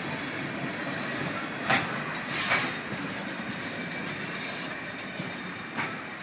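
Freight train tank cars rolling slowly over a level crossing, their steel wheels rumbling on the rails with occasional clacks. About two and a half seconds in comes a short, loud, high-pitched wheel squeal.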